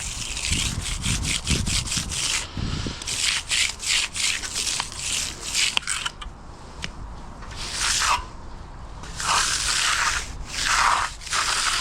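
Concrete broom dragged across freshly floated wet concrete in a series of scraping strokes, applying a broom finish to the slab.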